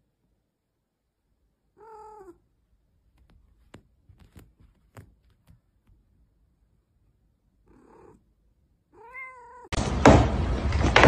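A house cat's short meows: one about two seconds in, then a faint one and a clearer one near the end, with a few light knocks between them. Just before the end a loud, rough noise cuts in abruptly.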